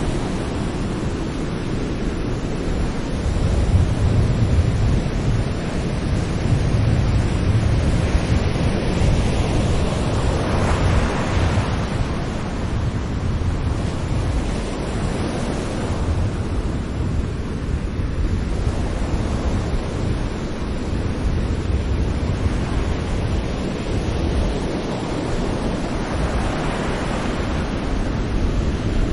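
Ocean surf: gentle waves breaking on a shore over a continuous low rumble, with a brighter surge of wash about a third of the way in and again near the end.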